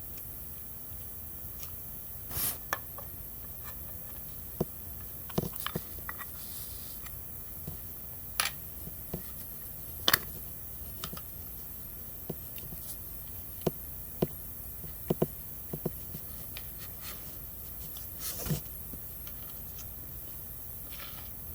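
Homemade fluffy slime being handled: scattered small clicks and short squishy pops over a steady hiss, with a couple of slightly longer squelches.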